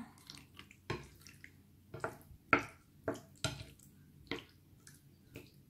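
A plastic spoon clicks and scrapes against a plate while it lifts and pushes cut cubes of set gelatin, with soft wet squelches from the jelly. The sharp knocks come about every half second, irregularly, the loudest about halfway through.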